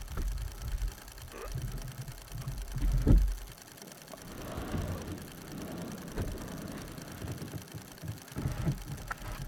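Kayak paddling sounds: irregular knocks and splashes of the paddle on the water, over a low rumble that drops away about three and a half seconds in.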